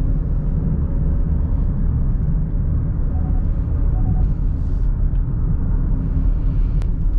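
Steady low road and drivetrain rumble inside the cabin of a moving Genesis GV70 SUV.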